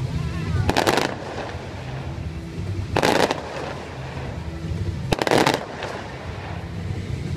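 Aerial fireworks shells bursting overhead: three loud bursts about two seconds apart, each a quick cluster of sharp bangs, over a steady low rumble.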